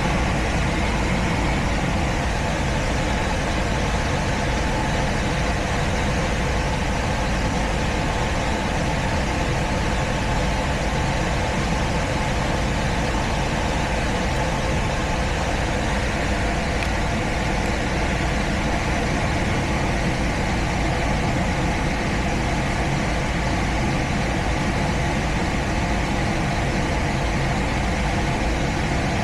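Gas furnace running: a steady motor hum and whir with a few constant tones over an even rush of air.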